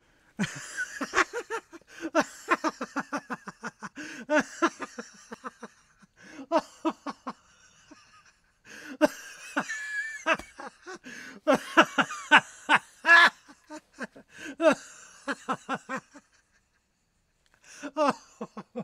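A man laughing hard in bouts of rapid 'ha-ha' pulses, breaking off briefly a few times with a longer pause near the end, and slapping his knee now and then with sharp claps of the hand.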